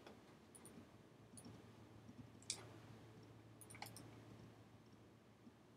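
A few faint computer-mouse clicks, the loudest about two and a half seconds in and a quick pair near four seconds, over a faint low steady hum.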